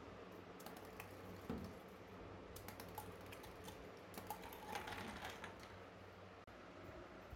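Faint, scattered light clicks and taps of small hard objects being handled, in irregular clusters, busiest in the middle.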